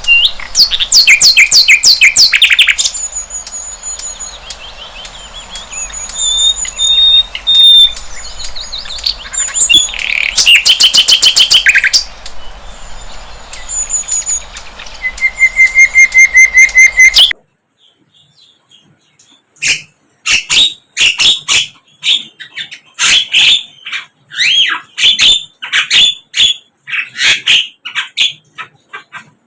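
Sikatan londo flycatcher singing: loud, fast trills and runs of repeated high whistled notes. About two-thirds of the way through the background hiss drops out suddenly and the song turns to a quick series of sharp chirps.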